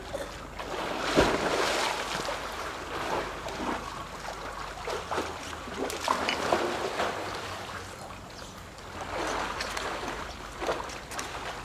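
Polar bears swimming and splashing in a pool, the water sloshing with repeated splashes, the loudest about a second in.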